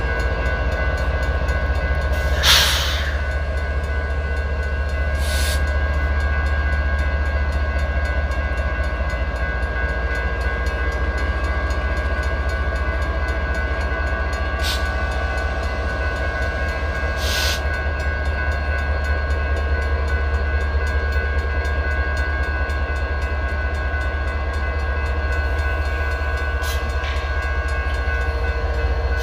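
Slow-moving freight train's diesel locomotives, a Union Pacific AC45CCTE and a Norfolk Southern SD70ACu, passing with a steady low engine rumble while the grade crossing bell rings steadily. Several short sharp knocks from the train sound over it, the loudest about two and a half seconds in.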